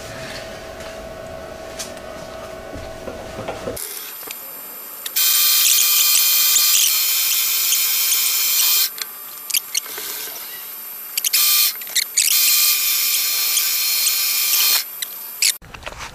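Milling machine running with a steady hum, then a countersink cutting a bolt hole in a lathe chuck backing plate with a loud, high-pitched squeal. The squeal comes in two long spells, about four and two and a half seconds, with short bursts between them.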